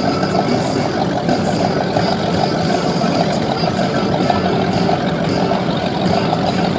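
Formula offshore powerboat's inboard engines idling as the boat moves slowly at low speed, a steady exhaust rumble from the transom outlets with no rise in revs.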